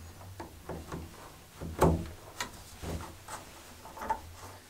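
Short clicks and knocks of PEX pipe and brass barb fittings being handled and pushed together by hand, the loudest knock just under two seconds in, over a faint low hum.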